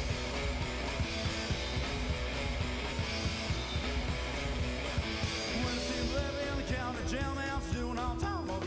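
Rock and roll music with guitar and a steady drum beat, a voice singing near the end.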